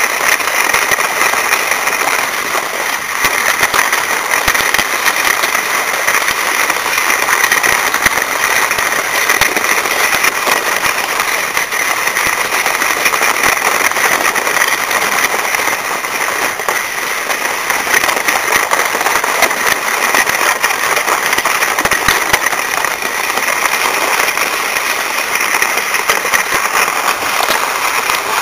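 Skis sliding over packed, groomed snow while being towed uphill on a drag lift: a steady, dense scraping hiss full of fine crackle.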